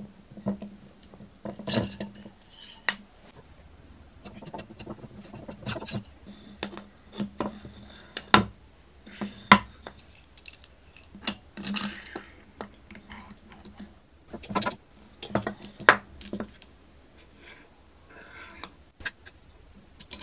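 Irregular metallic clinks and wooden knocks as a steel rod, its stop collars and a miter gear are handled and fitted into plywood supports on a wooden workbench, over a faint steady hum.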